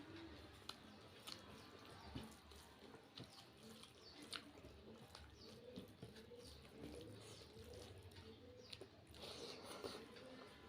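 Quiet close-up eating sounds: soft, wet chewing with scattered mouth clicks and smacks.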